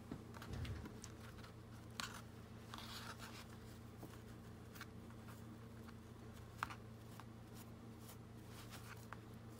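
Faint rustling and a few light clicks from hands handling a paper journal and tying a knot in its lacy fabric tie, over a steady low hum.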